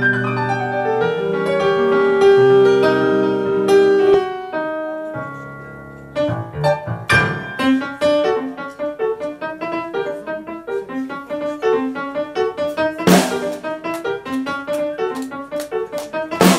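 Solo keyboard intro played with a piano sound on a Nord Stage stage keyboard. Held chords ring and fade out over the first five or six seconds, then a quick, rhythmic figure of repeated notes starts. A single sharp hit comes about thirteen seconds in.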